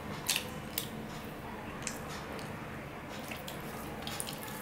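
Close-miked eating by hand: wet squishing as fingers mix rice and curry on a steel plate and the food is chewed, with about six short, sharp smacks scattered through.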